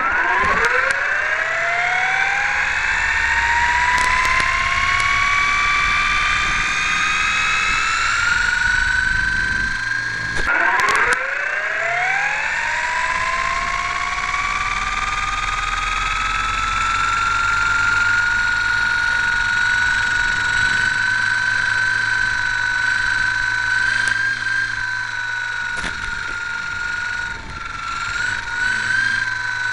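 Model Hurricane plane's motor, heard close up from on board, running up with a rising whine for several seconds. About ten seconds in it is throttled back briefly and runs up again, then holds a steady high whine, wavering slightly near the end.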